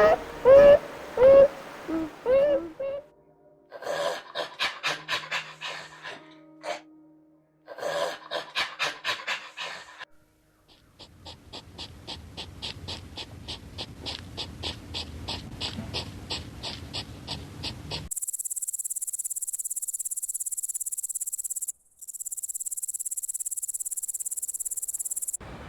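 A sequence of different animal calls. First comes a run of short repeated chirping calls, then rapid trilling pulses in two bursts, then a long fast pulsing train. A steady high-pitched insect-like buzz takes over at about 18 seconds and breaks off briefly about 22 seconds in.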